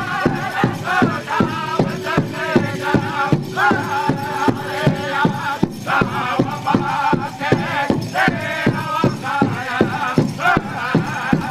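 Background music: a steady drum beat, about three beats a second, under a wavering melody line.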